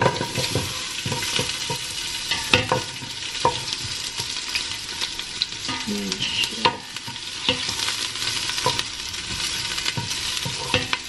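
Chopped onions sizzling as they fry in hot oil in a deep stainless-steel pot, stirred with a wooden spoon that knocks against the pot now and then.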